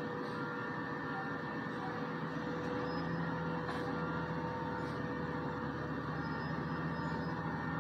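Steady mechanical hum of heavy machinery running, with a constant whine over it.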